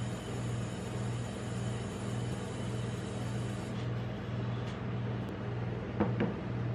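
Steady low hum from the refrigeration compressor of a rolled-ice-cream cold-plate machine, pulsing gently, with two light taps about six seconds in as the cup is handled on the metal plate.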